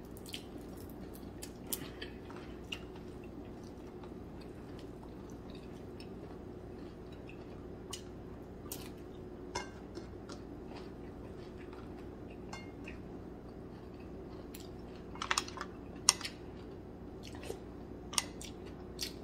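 Quiet eating at a table: chewing with scattered light clicks of food, clam shells and a spoon against ceramic dishes, thickest about fifteen seconds in, over a steady low hum.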